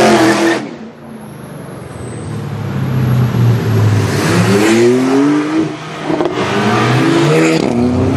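Chevrolet Camaro ZL1's supercharged V8 through an iPE aftermarket exhaust, accelerating hard and loud. The engine note climbs in pitch and drops back several times as it revs.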